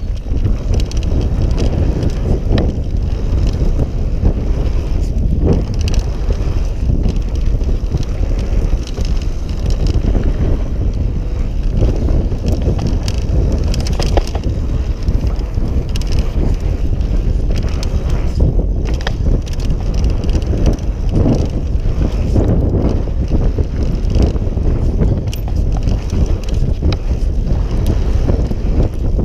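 Wind buffeting the microphone of a rider-mounted camera as a mountain bike rolls fast down a dirt trail, with tyre noise on the dirt and scattered knocks and rattles from the bike over bumps.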